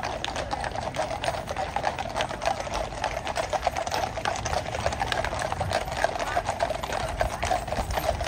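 Hooves of several horses clip-clopping, a dense, quick patter of overlapping clicks.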